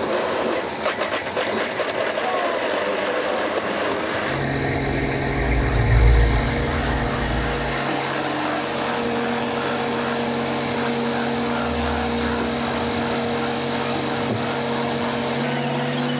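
Steady mechanical drone of a purse seiner's engine and deck machinery as the net is hauled. A louder low rumble swells about five to eight seconds in.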